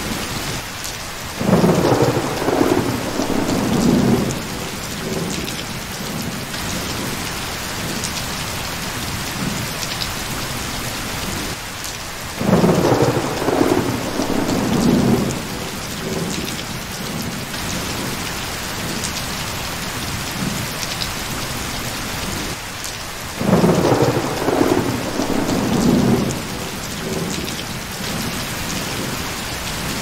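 Steady rain with a rumble of thunder three times, each lasting a couple of seconds, the same rumble coming back about every eleven seconds.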